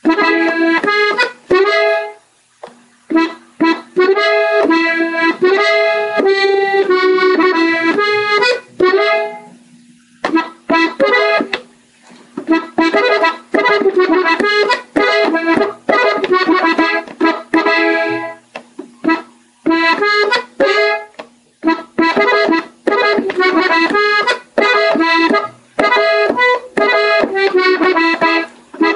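Gabbanelli button accordion playing slow melodic runs, the ornaments of a norteño tune. The runs come in phrases with several short pauses between them.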